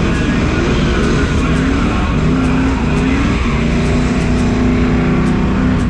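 A car engine revving hard under acceleration, its pitch rising in a few climbs and then holding steady near the end, over heavy road and tyre noise.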